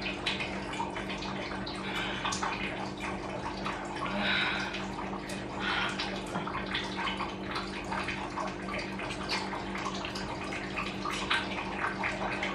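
Instant noodles being slurped and eaten with forks from ceramic plates: scattered wet slurps and small clicks of forks on plates, over a steady low hum.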